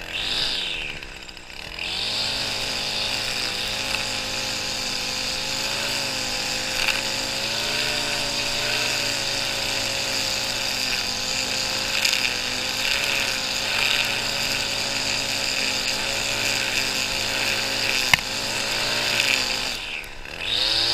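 Small gasoline engine of lawn equipment running steadily at high throttle, its pitch wavering slightly as it works through the grass. It starts about two seconds in, with a single sharp click near the end.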